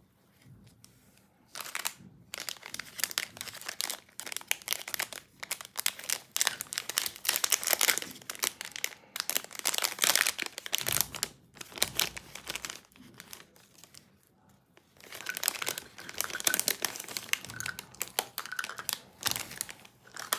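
Thin clear plastic bag crinkling and crackling as it is handled and opened, in dense bursts with a brief lull about two-thirds of the way through.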